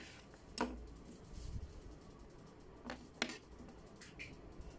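Knife cutting into a plastic bottle cap: a few short sharp clicks, one about half a second in and two close together near three seconds, with fainter ticks between.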